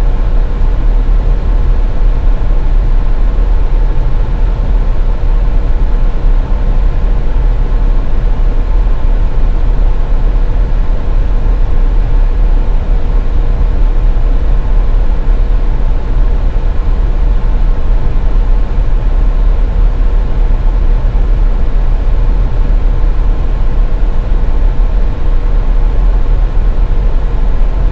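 Steady low rumble of a car being driven, engine and tyre noise, with a faint constant hum on top.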